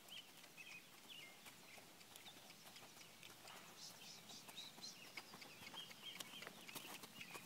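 Faint small birds chirping, with a horse's hoofbeats on soft dirt footing becoming clearer in the second half as the horse comes close.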